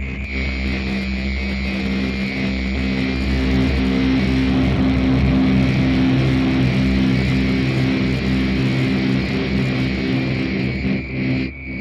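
Processed orchestral double bass sample, run through a pitch shifter and multiband compression, playing back as a sustained low drone with several steady tones. It swells over the first few seconds, holds, and dips near the end.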